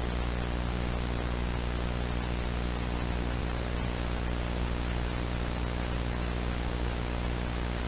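Steady static hiss with a low electrical hum underneath, the kind of noise an analogue VHS tape gives on playback. It does not change.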